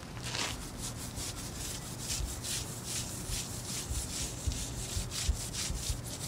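Hand scrub brush scrubbing a liquid concrete remover into a truck's reflector and painted steel in quick back-and-forth strokes, about three a second. The brushing agitates the remover, which only keeps working while it is brushed.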